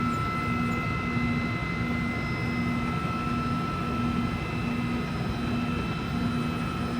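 Spindle of an Okuma Genos M560-V vertical machining center running at 7,000 RPM, a steady high whine over a broad machine hum. A low tone pulses on and off at an even rhythm, roughly once every three-quarters of a second.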